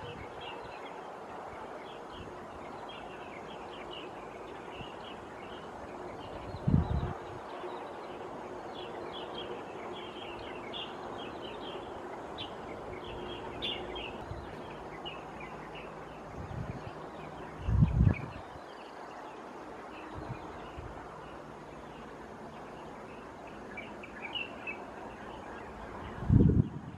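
Birds chirping, many short high calls overlapping against a steady background hiss. Three brief low thumps on the microphone stand out as the loudest sounds, the biggest about two-thirds of the way through.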